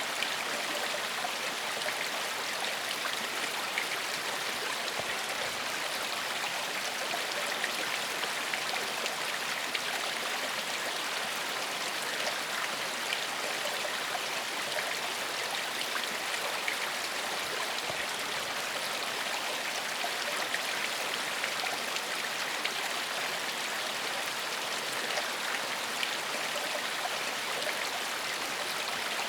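Forest stream flowing steadily over rocks, an even rushing and babbling of water with no change.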